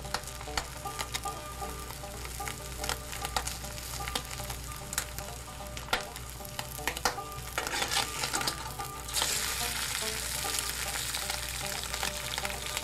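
Food frying in hot oil: a dense sizzle full of crackles and pops, growing louder and brighter about nine seconds in.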